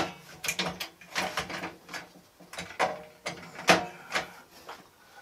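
Irregular clicks, clacks and rattles of metal parts as a table saw's stop is set up by hand, with no motor running.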